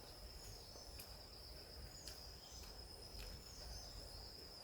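Faint forest ambience: insects keeping up a steady high-pitched drone, with a few short bird chirps scattered through it.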